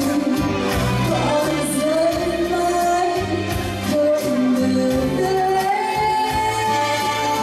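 A woman singing a Vietnamese ballad live into a microphone, holding long notes, backed by an electronic keyboard with a steady bass line and a light beat.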